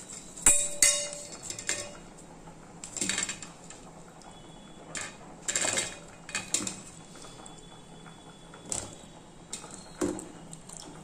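Stainless steel bowls clinking and knocking as chopped raw banana pieces are tipped from one bowl into another holding chilli-turmeric spice powder: a scattering of separate clinks and knocks.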